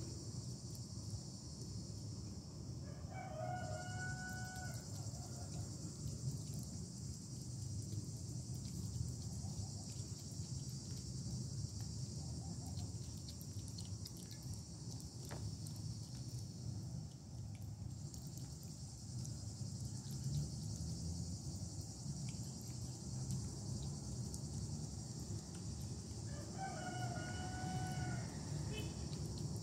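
A rooster crows twice, once about three seconds in and again near the end, each crow ending in a held note. Under it runs a steady high chirring of crickets.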